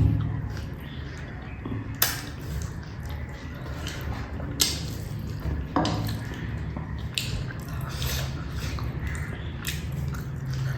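Close-up eating sounds: wet chewing and mouth sounds of someone eating rice with fish curry, with about six sharp clicks or smacks scattered through.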